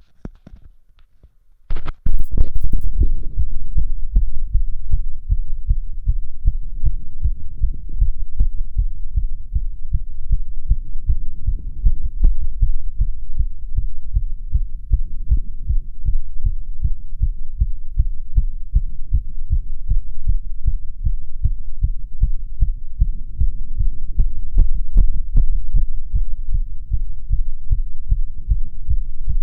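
A man's heartbeat heard through a stethoscope on his chest: fast, regular lub-dub thumps, which the owner finds quick but otherwise normal. A brief scrape of handling noise comes about two seconds in, just before the beats start.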